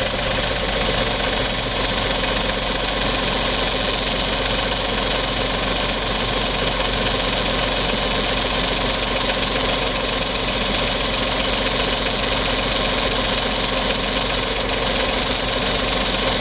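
Engine idling with a steady abnormal noise from the PCV valve, likened to the squeak of a longhorn beetle. The noise comes from the valve's internal wear and carbon buildup throwing it off balance.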